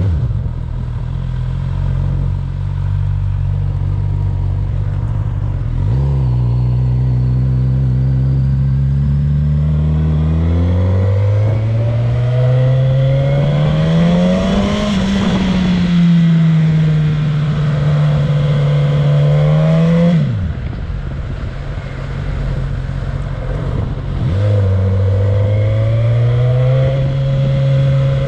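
Suzuki GSX-S1000's inline-four engine running as the bike rides along: the pitch climbs under acceleration to a peak about fifteen seconds in, drops sharply as the throttle is eased about twenty seconds in, and picks up again about four seconds later.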